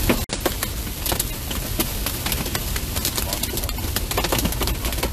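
Hail and heavy rain pelting a car's roof and windshield: a steady hiss of rain dotted with many sharp clicks of hailstones striking.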